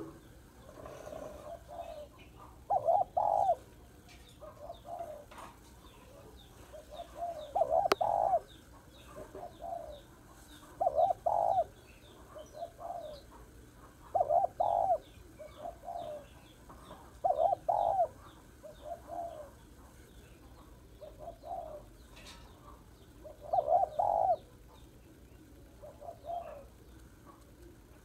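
Spotted dove cooing: a repeated phrase of a loud doubled coo with softer coos between, coming every three to four seconds, with a longer pause about two-thirds of the way through. Faint high chirps run underneath.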